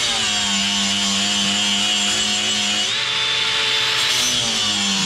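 Angle grinder fitted with a worn flap disc, running and grinding down a stainless steel weld, its pitch dipping slightly now and then as the disc bears on the metal.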